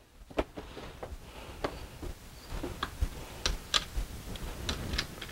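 Irregular clicks and light knocks of plastic and metal parts as the Dorman nylon fuel line repair kit's clamp tool is handled, loosened and taken apart. The clicks come more often in the second half.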